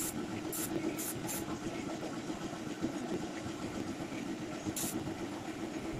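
Paint spray rig running: the air supply's motor hums steadily. Short hisses of air from the spray gun come four times in the first second and a half and once more near the end.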